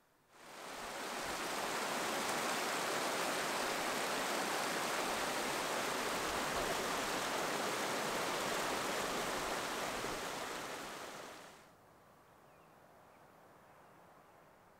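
Small mountain stream rushing and cascading over rocks, a steady rush of water. It fades in over about a second and drops away sharply about three-quarters of the way through, leaving only a faint hiss.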